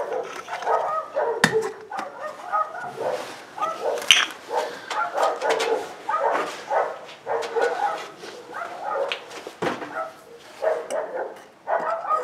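An animal whining and yelping in many short, pitched cries, with a few sharp knocks in between.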